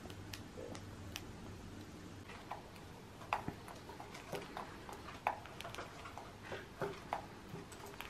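Cockatiels foraging, their beaks picking and tapping at seed and foraging material in soft, irregular small clicks that come more often after the first couple of seconds.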